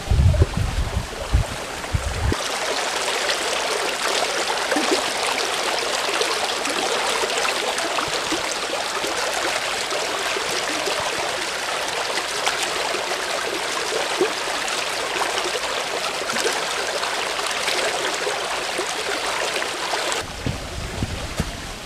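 Small rocky creek rushing and splashing over boulders in a shallow cascade, a steady even rush that starts a couple of seconds in and stops shortly before the end. Low thumps and rumble come before and after it.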